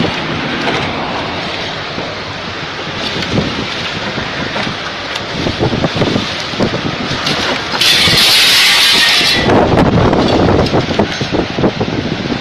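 Loud, steady rushing of tornado-force wind over the microphone. About eight seconds in, a harsher hissing surge lasts a second and a half, then the noise turns rougher and more gusty.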